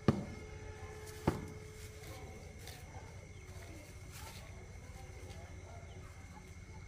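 A red plastic basin set down on a concrete yard with a sharp knock, and a second knock about a second later. After that comes faint rustling of a plastic bag as bamboo shoots are handled.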